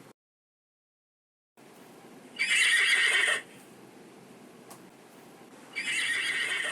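Horse whinnying twice, each call about a second long.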